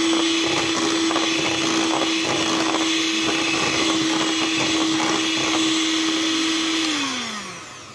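Electric hand mixer running at a steady speed, its beaters working flour into cake batter. About seven seconds in it is switched off and winds down, its hum dropping in pitch as it stops.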